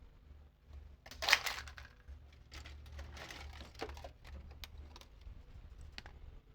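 Faint small clicks, taps and light rustling of tools and small parts being handled on a repair bench, with one brief louder rustle about a second in.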